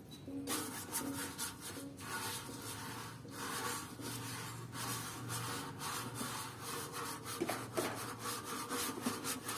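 A stiff bristle brush scrubbed back and forth over a wet metal motorcycle fuel tank in quick repeated strokes, rubbing off paint softened by a homemade paint remover.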